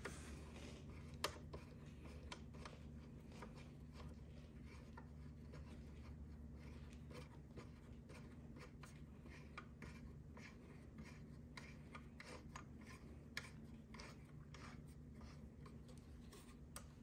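Faint, scattered clicks and light scraping of a hand driver turning the headlight bracket's mounting bolts as they are snugged, over a low steady hum.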